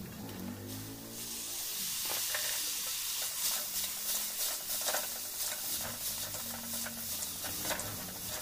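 Chowmein noodles sizzling in a hot wok as they are tossed with a spatula, with repeated scraping clinks of the spatula against the pan. The sizzle grows louder about a second in.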